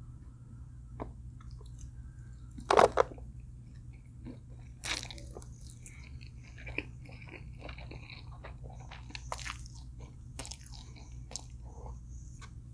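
A person eating close to the microphone: scattered bites and chewing sounds with a few louder crunches, the loudest about three seconds in and another about five seconds in, over a steady low hum.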